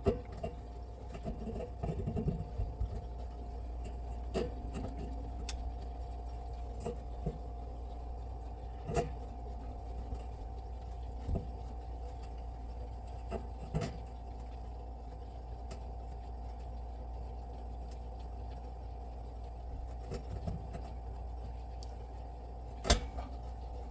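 Steady low hum of a running refrigerator, with scattered short clicks and knocks; the loudest knock comes near the end.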